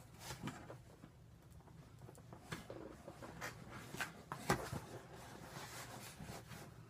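Faint rustling with a few scattered light clicks and knocks from a person shifting and moving her hands, over a low steady room hum.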